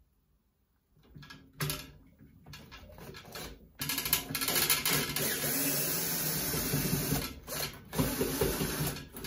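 Cordless drill/driver running slowly in short bursts, then steadily and louder from about four seconds in, turning a bit hammered into a rounded-out bolt head to back out a stuck fender bolt.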